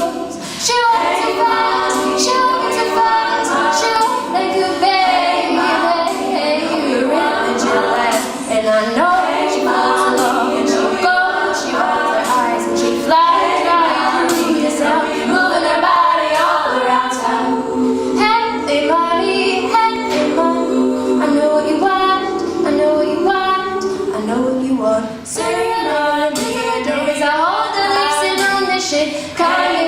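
Women's a cappella group singing in layered close harmony, with several voice parts moving together and no instruments.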